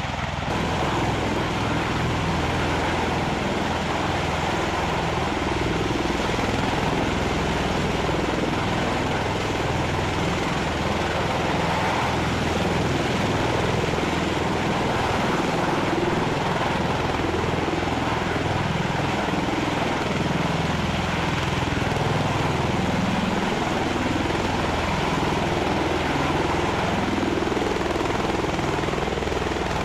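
MV-22 Osprey tiltrotor hovering in helicopter mode, its twin proprotors and turboshaft engines making a loud, steady noise with a low throb underneath.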